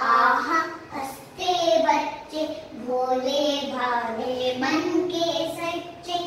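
Two young children, a girl and a boy, singing a Hindi alphabet song together in short phrases.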